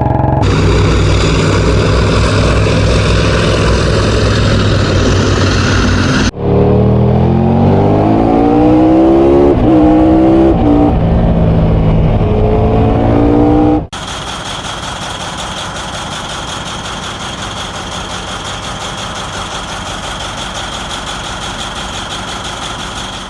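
Engine sounds in three cut-together parts. First a steady running engine. About six seconds in, an engine accelerating hard, its pitch rising and dropping back several times as it shifts up through the gears. Then, about fourteen seconds in, a quieter steady mechanical drone with a high whine.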